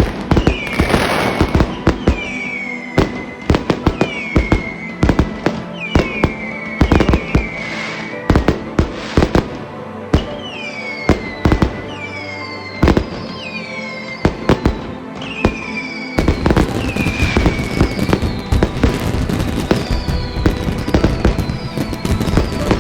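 Fireworks going off: a rapid run of sharp bangs and crackles, with a whistle falling in pitch about once a second, over background music. The bangs grow denser about two-thirds of the way in.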